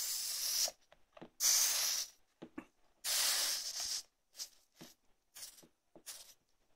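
Hot tip of a Parkside PLSD 48 A1 soldering iron sizzling on a wet cleaning sponge as the water flashes to steam. It comes in bursts: three longer hisses in the first four seconds, then several short ones.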